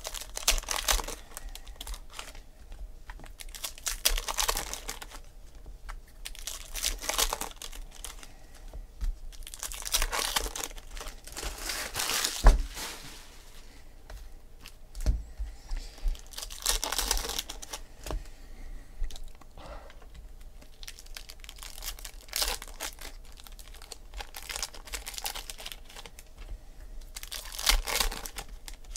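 Foil baseball card pack wrappers being torn open and crinkled by hand, in repeated bursts every few seconds. There is a single sharp knock about halfway through.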